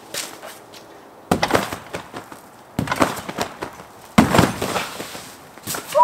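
Person bouncing on a wet JumpSport AlleyOop rectangular trampoline: three bounces about a second and a half apart, each a sudden thump and swish of the mat that fades over about a second. Sharper knocks come near the end as he lands in a crouch.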